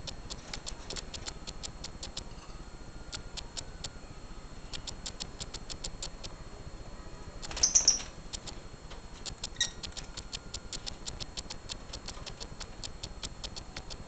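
Masked lovebirds chirping: a fast, irregular run of short high chirps, with one louder shrill squawk just past the middle.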